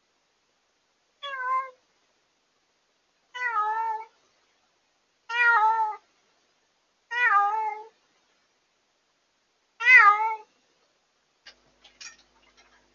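A newly rescued former stray cat meowing loudly five times, about every two seconds, each call wavering in pitch. It is picked up by a pet-monitoring camera whose sound distorts. This is the night crying of a cat just taken in from outdoors. A few faint clicks follow near the end.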